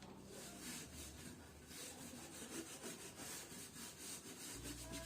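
Faint, rapid, repeated rubbing strokes, like a brush or cloth being worked back and forth over a surface.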